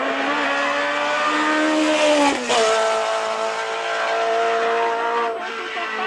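Matra Murena's four-cylinder engine pulling hard in a hillclimb run, its pitch climbing, then dropping sharply at an upshift about two and a half seconds in before holding steady as the car draws away.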